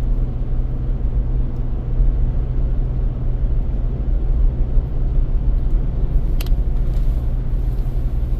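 Road and engine noise inside a moving car's cabin: a steady low rumble, with a couple of short clicks late on.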